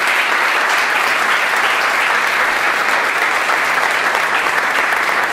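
Audience applauding: a steady round of dense clapping.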